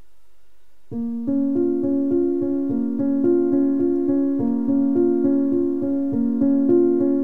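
Background piano music that starts about a second in, playing a steady pattern of evenly repeated notes.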